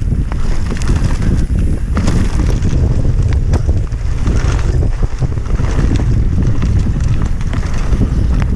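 Heavy wind buffeting the microphone of a camera on a mountain bike riding down a trail, with steady low rumble and scattered sharp knocks and clicks from the bike.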